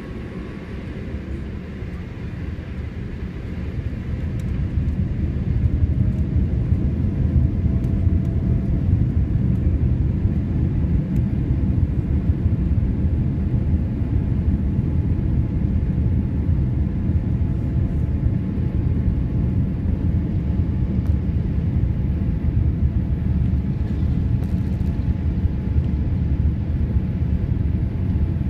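Boeing 787-8 Dreamliner on its takeoff roll, heard inside the economy cabin by a window over the wing: the engine noise builds over the first few seconds as takeoff thrust comes up, then becomes a steady, loud low rumble of engines and wheels on the runway.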